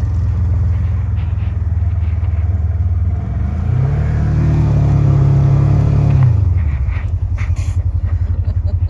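Vehicle engine running, revving up for a couple of seconds about midway, then dropping back to a low, evenly pulsing idle.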